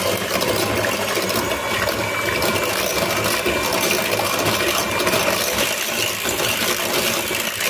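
Electric hand mixer running steadily, its twin beaters whisking a runny egg, yogurt and oil mixture in a glass bowl, with a steady motor whine.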